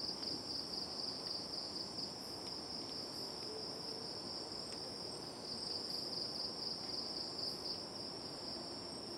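Continuous high trilling of night insects, louder for the first couple of seconds and again from about the middle, over a low background hum.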